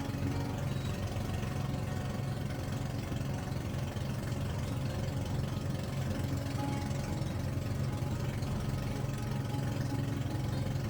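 Boat engine running steadily with a continuous low hum and a fast, even throb.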